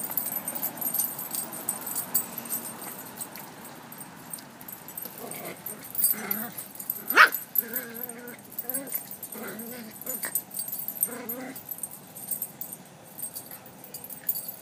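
Small dogs scuffling with one another, giving a few short whines and one sharp yelp about seven seconds in.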